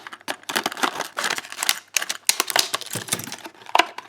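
A padlock's plastic and cardboard retail packaging being pulled and torn open: a quick, irregular run of crackles and clicks.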